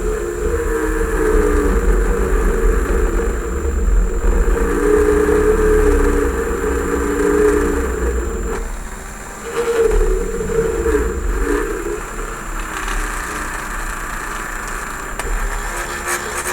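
Small variable-speed rotary tool running at low speed, drilling a 2 mm hole through a plastic model kit part. The motor whine holds steady, then sags and wavers in pitch a little past halfway as the bit bites, and picks up again.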